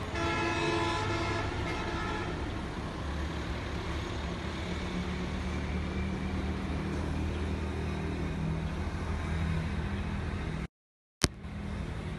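Busy road traffic: the steady hum of bus and auto-rickshaw engines. A steady pitched tone sounds over the first two seconds. Near the end the sound cuts out for about half a second, then a single sharp click comes before the traffic noise resumes.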